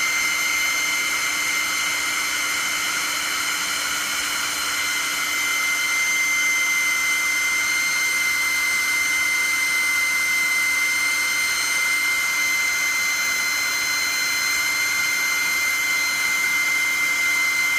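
Pet hair dryer blowing steadily, a rush of air with a steady high whine from its fan motor.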